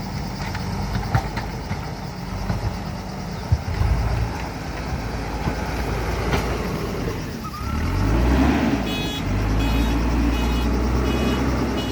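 JCB 3DX Super backhoe loader's diesel engine running, with a few sharp knocks in the first half, then revving up about two-thirds of the way in. Its reversing alarm starts beeping near the end, about one beep every three-quarters of a second.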